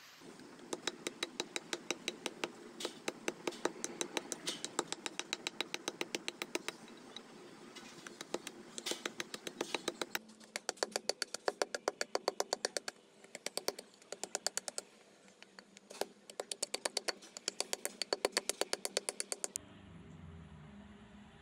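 Rapid light tapping at about six taps a second, in runs of a few seconds with short pauses, as a wooden knife handle is cut to shape with a hand tool. The tapping stops near the end, leaving a low hum.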